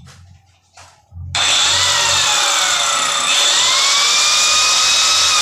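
Electric saw cutting ceramic tile, starting abruptly about a second in and running loud, its motor whine dipping and rising in pitch as the blade bites into the tile.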